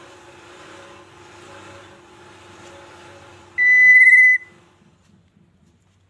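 A single loud, steady high whistle, just under a second long, over a faint steady hum that fades out soon after.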